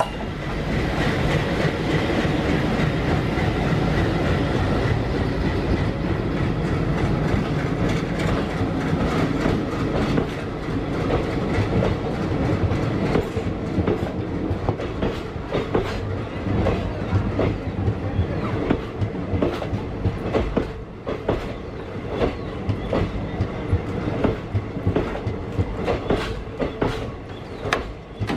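Train wheels clacking over rail joints under a steady rumble of the moving train, the clicks growing more frequent in the second half.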